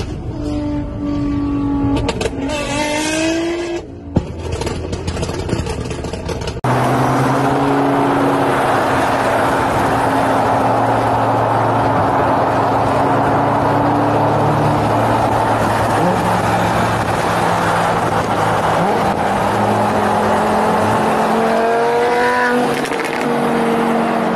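High-performance car engines accelerating on a highway. First an engine revs up through the gears in rising steps, with a short knock about 4 s in. After a sudden cut there is a loud, steady rush of engine, wind and road noise at speed, and an engine revs up again near the end.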